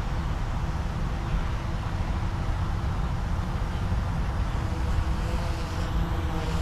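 Wind buffeting the microphone as a steady low rumble, with a faint steady hum underneath.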